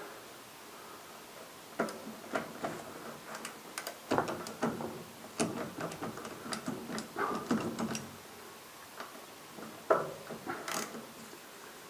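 Irregular clicks and light metal knocks of hand tools working on a motorcycle's front brake caliper bolts, with a denser run of clicks in the middle.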